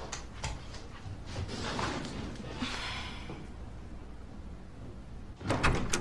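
Interior door sounds: quiet handling noise, then a sharp clatter of a door and its latch near the end.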